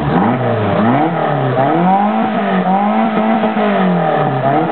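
Engine on an open run stand being revved: its pitch climbs and falls a few times, then holds high for a couple of seconds before dropping back near the end.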